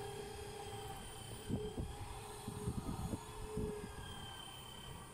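Steady machinery hum on a ship's deck, made of several fixed tones. A handful of dull knocks and thuds comes between about one and a half and four seconds in.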